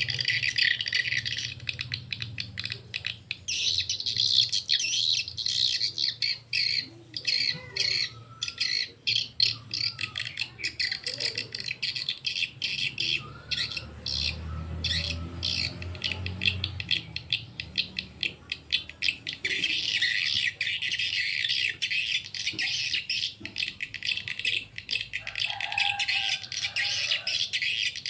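Recorded edible-nest swiftlet call sound, the lure played to draw swiftlets into a nesting house, coming through small horn tweeters: dense high twittering chirps that thin out to separate sharp chirps and clicks in the middle, then turn dense again near the end.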